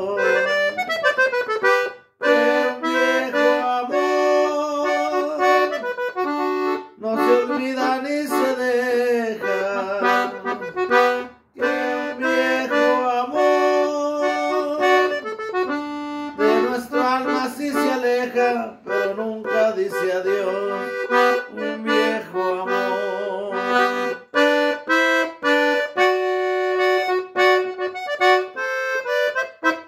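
Gabbanelli piano accordion playing a slow melody on the right-hand keys with bass accompaniment, in the key of G. The playing breaks off briefly twice, about two seconds in and again near the middle.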